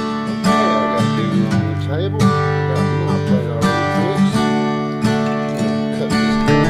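Acoustic guitar music, plucked and strummed, with sliding notes in a country style.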